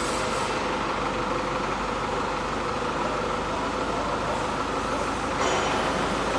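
Steady engine or machinery running noise, even throughout, with a slight shift in tone about five seconds in.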